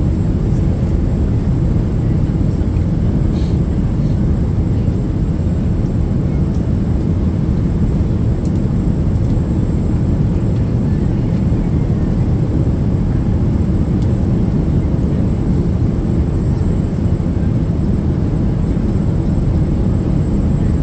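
Steady cabin noise of a Boeing 777-200 in flight: an even, low rumble, with a few faint clicks.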